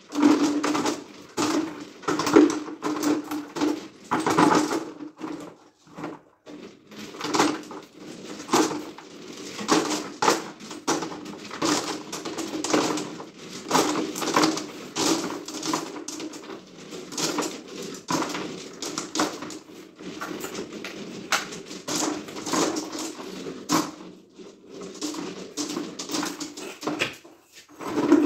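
Irregular knocking and clattering of hand tools against broken concrete and rubble, several blows a second in bursts with short pauses.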